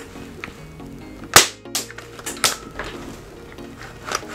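UHC Super X9 spring-bolt airsoft sniper rifle being fired and worked by hand: one loud sharp crack about a second and a half in, then several lighter clicks of the bolt as it is cycled to eject the shell and load the next.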